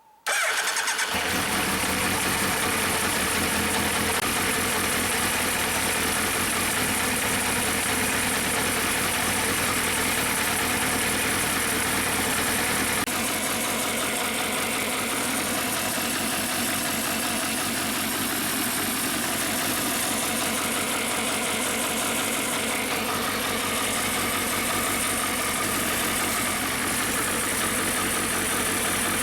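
Suzuki Hayabusa's inline-four engine running steadily at idle, heard as it runs after its throttle bodies were cleaned and spark plugs replaced to cure a rough idle. The sound begins suddenly and drops slightly in level about 13 seconds in.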